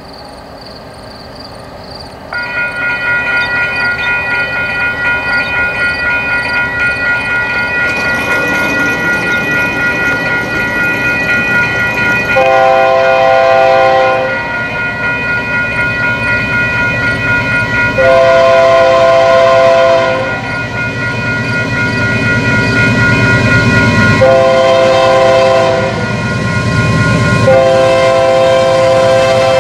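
Union Pacific locomotive horn sounding two long blasts, a short one and a final long one: the standard grade-crossing signal of an approaching train. Under it the rumble of the passing empty coal train grows louder.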